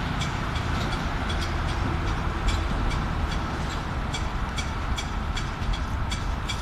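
Concrete pump truck running with a steady low drone, while sharp metallic ticks and clinks come several times a second.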